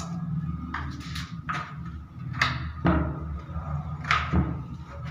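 Wooden door being shut and its sliding metal bolt worked: a series of sharp knocks and clacks, about half a dozen, over a low steady rumble.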